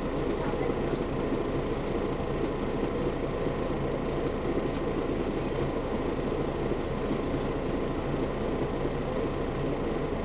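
Interior cabin noise of a Mercedes-Benz Citaro G articulated city bus: a steady engine hum with low tones and general running noise, unchanged throughout.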